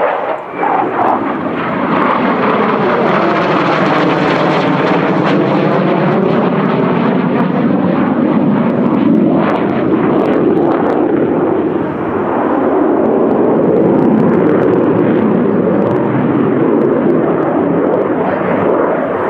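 Mikoyan MiG-29 fighter's twin jet engines running loud and steady during a display pass. The sound swirls, its tone sweeping down and back up as the jet passes overhead.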